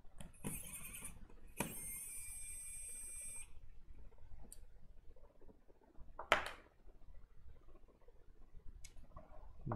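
Small electric precision screwdriver running in two short bursts as it backs screws out of a laptop's metal shield plate; the second run is a steady whine of about two seconds. A sharp click follows about six seconds in, with a few faint ticks.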